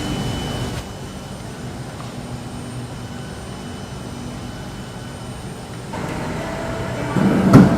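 Steady low mechanical hum and rumble, like a vehicle or train running, with a single sharp knock near the end.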